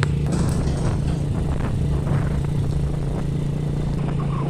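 Motorcycle-and-sidecar engine running at a steady cruise, a constant low hum, with wind and road noise from riding along.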